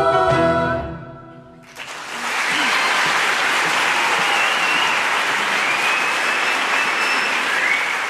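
A choir's final held chord dies away about a second and a half in, and the audience breaks into applause, with a few high calls over it.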